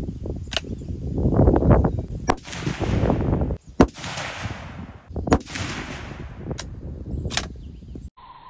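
Several rifle shots from a 6.5 Creedmoor Ruger American bolt-action rifle, sharp cracks a second or more apart, over a low rumble of wind on the microphone.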